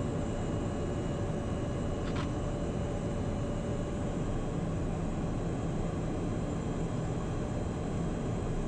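Steady cabin drone of a Cessna Citation Mustang in flight, its twin turbofan engines and the rushing airflow blending into an even noise with a faint high whine. A short click comes about two seconds in.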